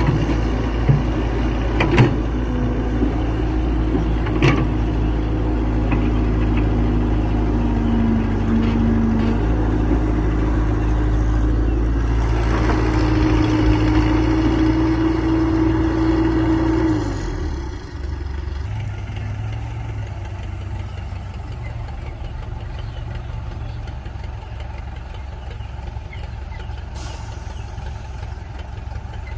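An excavator's diesel engine running hard with a steady whine over it, and a few sharp knocks in the first seconds. About two-thirds of the way through it drops to a quieter, lower idle.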